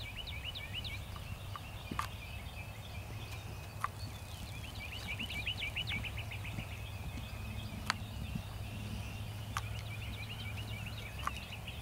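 Birds chirping in quick repeated high trills, heaviest about halfway through, over a steady low rumble, with a few scattered sharp clicks.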